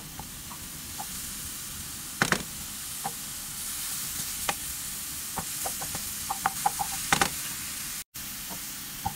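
Chopped mushrooms sautéing in a nonstick frying pan, with a steady sizzle under the scrape and tap of a wooden spatula stirring them; louder knocks of the spatula about two seconds in and again near the end, and the sound briefly cuts out just after eight seconds.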